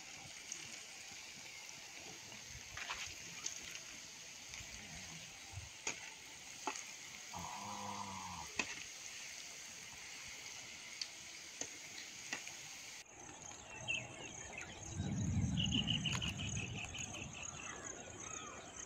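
Potato slices deep-frying in hot oil in an aluminium pot over a wood fire: a steady sizzling hiss with scattered crackles and pops. About three quarters through, a louder low sound rises over the sizzle for a couple of seconds.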